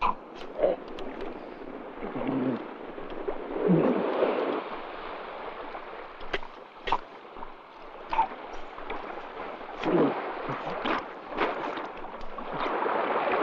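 Water sloshing and gurgling, with scattered sharp knocks and a few short grunts from a man.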